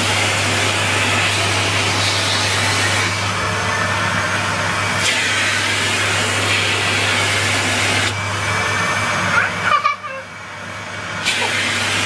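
Numatic Henry cylinder vacuum cleaner running steadily, a loud rushing of air over a low motor hum. Near ten seconds the noise drops away for about a second, then comes back.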